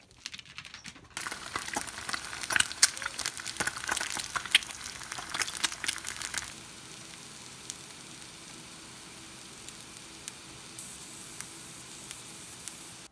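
Two eggs frying in oil in a flat pan, crackling and spattering loudly at first. About halfway through it settles into a quieter, steady sizzle.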